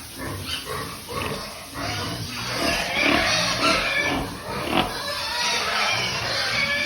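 Farm pigs grunting and squealing, short calls overlapping one another in a continuous run.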